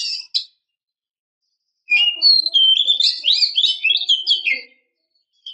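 Female oriental magpie-robin (kacer) singing: a phrase of whistles breaks off just after the start, and after about a second and a half of silence comes a run of quick, varied whistled notes lasting about three seconds. It is the call of a female in breeding condition, used to lure and rouse male magpie-robins.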